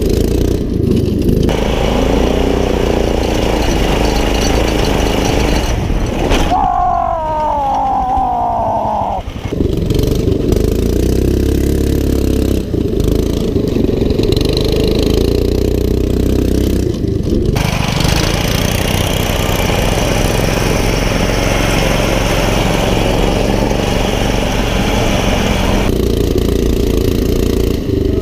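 Small single-cylinder go-kart engines running hard off-road, the sound changing abruptly several times. About seven seconds in, a whine slides down in pitch for a couple of seconds.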